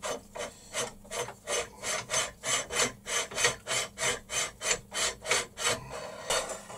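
Threaded outer barrel of an airsoft Barrett M82A1 replica being unscrewed by hand, rasping on its thread in even strokes of about three a second, one for each turn of the hands. It stops about six seconds in.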